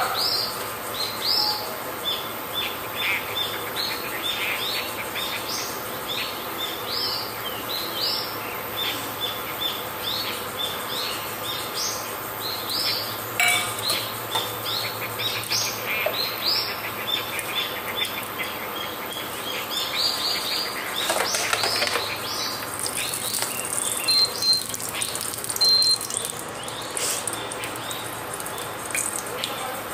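Small birds chirping over and over, a steady run of short high chirps about twice a second.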